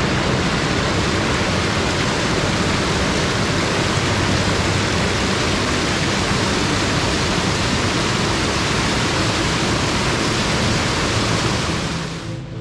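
Loud, steady rush of water tumbling down a cascade of a mountain stream, heard close. It cuts off near the end as music comes in.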